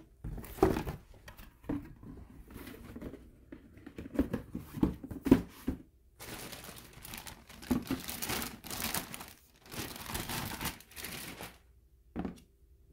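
Plastic packing wrap crinkling and rustling in irregular bursts as it is handled and pulled out of a cardboard box, with a few knocks. One short knock near the end.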